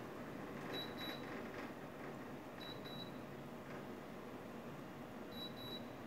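LG mini split air conditioner indoor unit giving three short high double beeps a couple of seconds apart, its acknowledgement of remote-control commands, over the steady hiss of its running fan.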